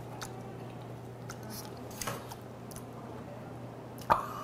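Soft, wet chewing of steamed lobster tomalley, with small clicks and crackles of chopsticks against the shell. About four seconds in, a sudden loud vocal exclamation breaks in and is held.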